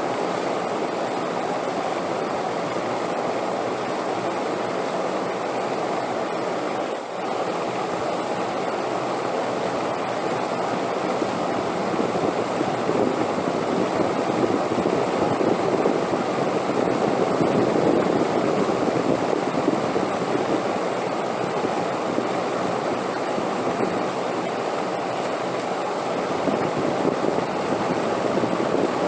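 Wind blowing as a steady rushing noise, swelling louder in gusts through the middle and again near the end.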